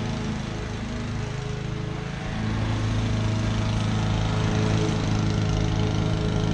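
Honda HRU216D self-propelled lawn mower's four-stroke petrol engine running steadily under mowing load, louder from about two seconds in.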